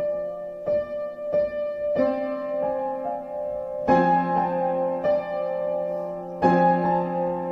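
Piano playing a slow improvisation: single notes and sustained chords struck every second or so, each left to ring, with louder chords about four seconds in and again near the end.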